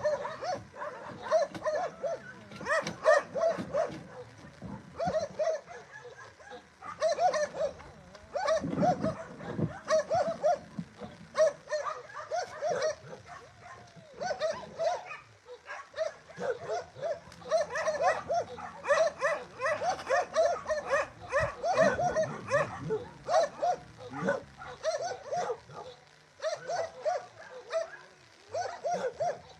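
Several dogs barking over and over, short overlapping barks with hardly a pause.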